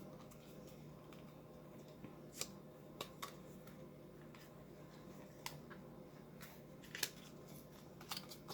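Scissors snipping and clicking at a small makeup box's packaging: a handful of separate sharp snips a second or so apart, the loudest about seven seconds in, over a faint steady hum.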